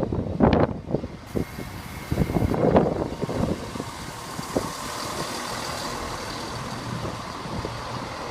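Class 170 Turbostar diesel multiple unit standing at the platform with its engines running steadily. There are a few irregular knocks and bumps in the first three seconds.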